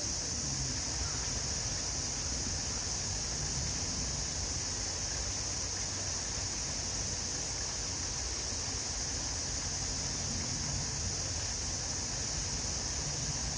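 Steady high-pitched buzz of a summer cicada chorus, over a low outdoor rumble.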